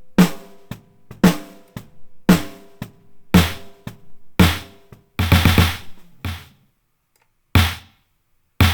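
Soloed snare drum playing a steady beat, one hit about every second, with a quick run of hits about five seconds in and a short gap near the end. Partway through, the ringing acoustic snare gives way to a punchier LinnDrum-style drum-machine snare, its electronic replacement.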